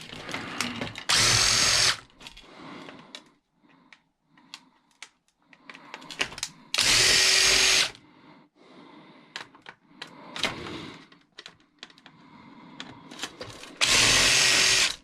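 Power drill with a Phillips bit backing out screws: three short steady runs of the motor, each about a second long, with light clicks of parts being handled in between.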